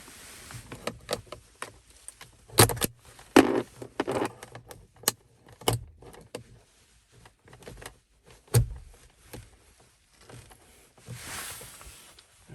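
Handling noises as a dash cam's power cable and plug are fitted in a car: a run of small clicks, scrapes and rattles with a few sharp knocks, and a short rustle near the end.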